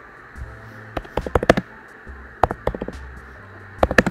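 Typing on a computer keyboard: short runs of quick key clicks with pauses between them.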